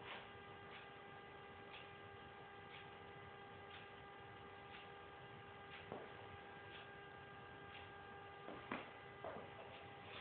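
Near silence: a faint steady electrical hum with faint ticks about once a second, and a few soft knocks near the end.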